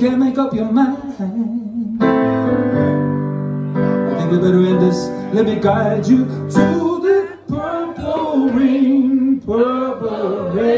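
A man singing long notes with a wavering vibrato over piano chords played on a Yamaha digital keyboard. The chords are struck afresh about two seconds in and held under the voice.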